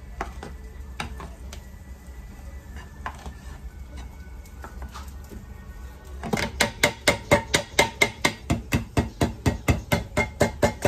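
Light scraping clicks of a utensil inside a tin can, then from about six seconds in a fast run of sharp knocks, about five a second for some four seconds: an upturned can of black beans being knocked to shake the last beans out into a metal pot.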